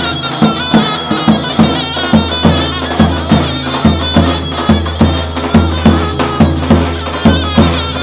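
Davul and zurna playing a folk dance tune: the davul's steady beat of about two strokes a second under the zurna's high, wavering melody.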